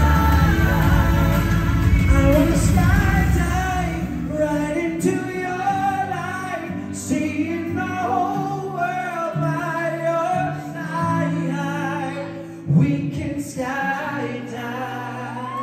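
Male pop vocalists singing live into microphones over amplified backing music. The heavy bass drops out about four seconds in, leaving the voices over a lighter accompaniment.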